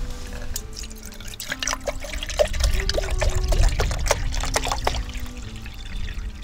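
Water poured from a large plastic bottle into an empty stainless steel cooking pot, trickling and splashing against the metal as it fills.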